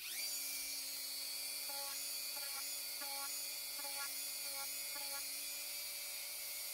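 Dremel 4000 rotary tool switched on, its pitch rising as it spins up, then running at a steady high whine while its medium sanding drum is worked over the glued seams of an EVA foam mask.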